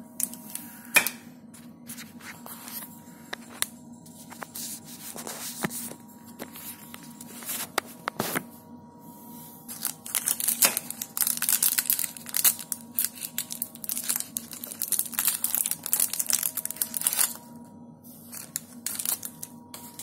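Scratchy rustling and crinkling with scattered sharp clicks from hands handling things at an open dishwasher, busiest for several seconds in the second half, over a faint steady low hum.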